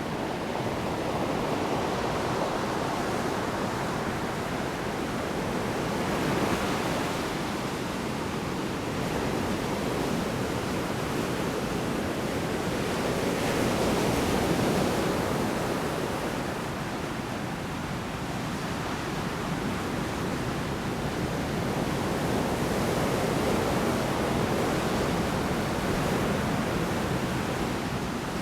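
Large storm waves breaking on a shore: a continuous roar of surf that swells and ebbs in slow surges every several seconds.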